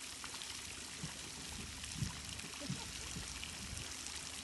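Water trickling and splashing steadily, with a few soft low knocks about two seconds in.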